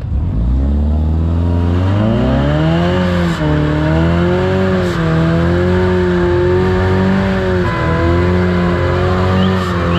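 Ford Mustang doing a burnout. The engine revs climb over the first three seconds and are then held high, the pitch wavering up and down, over the steady squeal and hiss of the spinning rear tyres.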